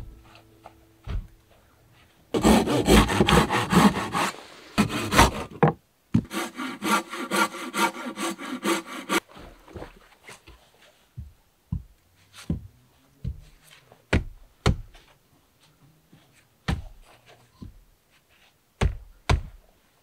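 Hand saw cutting through wood in two bouts of quick, even back-and-forth strokes, followed by scattered wooden knocks as logs are handled and set in place.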